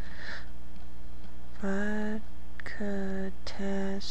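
A woman's voice making three short, drawn-out sounds at an even pitch, over a steady low electrical hum.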